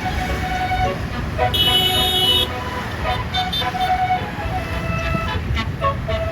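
A tour bus's 36-note telolet horn playing a quick tune of short notes, with a loud held chord about a second and a half in that lasts about a second. Engine and road rumble run underneath.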